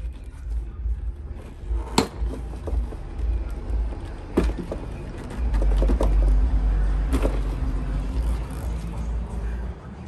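Plastic interior door panel of a Chevy Silverado being pushed up and pulled against its fastenings, giving a few sharp plastic clicks and knocks, the loudest about two seconds in, over a low steady rumble. The panel does not come free because two hidden screws still hold it.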